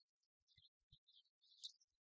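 Near silence, with only faint scattered crackles and a few soft low thumps.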